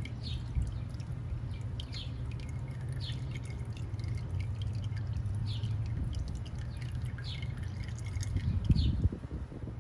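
Used motor oil seeping from a loosened spin-on oil filter and dripping into a drain pan: irregular drips about once a second over a steady low hum, with a couple of low knocks near the end.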